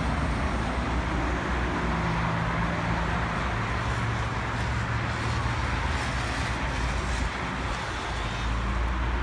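Steady noise of road traffic from a busy multi-lane city street below, cars passing in a continuous hum with a low rumble.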